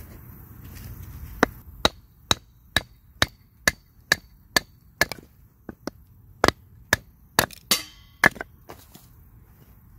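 A wooden baton striking a metal blade lodged in an upright stick of firewood, splitting it into kindling: a steady run of sharp knocks, about two a second, with a brief crackle of the wood splitting near the end.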